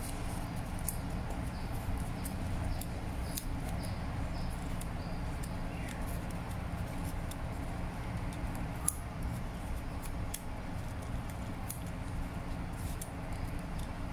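Faint, irregular ticks and rustles of fingers handling a roll of label paper against a plastic label printer, over a steady low hum.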